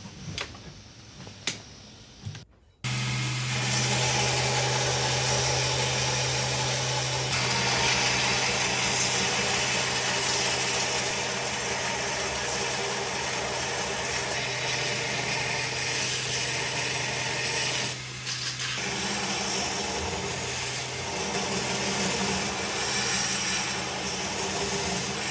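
Belt grinder with a small contact wheel running and grinding the inside curves of a steel knife blank: a steady motor hum under a dense hiss of abrasive belt on steel. It starts suddenly about three seconds in, after a few light clicks, and the hum dips and changes pitch about two-thirds of the way through.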